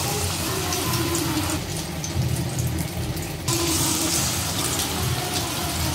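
Batter-coated Nendran banana slices sizzling and crackling in hot oil in a deep pan. The sizzle grows louder about three and a half seconds in as another battered slice goes into the oil.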